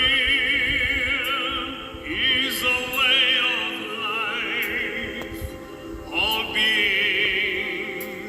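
Background music, the slow opening of a song: long high notes held with a wide vibrato in three phrases, the second starting about two seconds in and the third about six seconds in, over sustained accompaniment.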